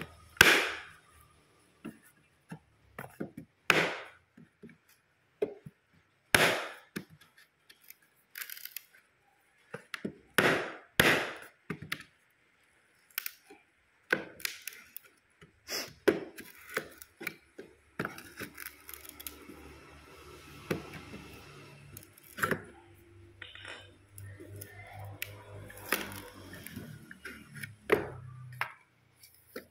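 Sharp wooden knocks and cracks at uneven intervals as the nailed pallet-wood slats of a shipping crate are struck and pried loose with a claw hammer, with quieter scraping and handling of the wood between the blows.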